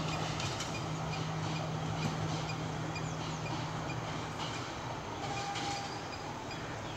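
Class S12 diesel-electric multiple unit moving away down the line. Its steady engine hum and rumble fade as it recedes, the hum dying out about two-thirds of the way through.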